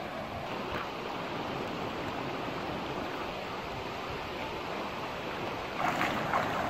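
Steady rush of a shallow stream running over stones, with two splashes near the end as bare feet kick through the water.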